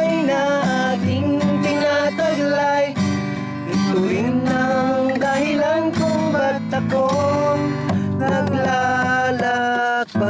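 Acoustic guitar strummed with a voice singing a melody, with a brief dropout near the end.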